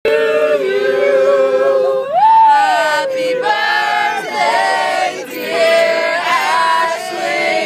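A group of voices singing together, holding long notes; one voice swoops up and back down about two seconds in.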